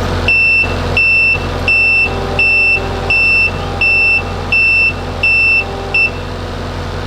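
Reversing backup alarm on a work machine beeping evenly, about nine high-pitched beeps roughly three every two seconds, stopping about six seconds in, over a steady engine running.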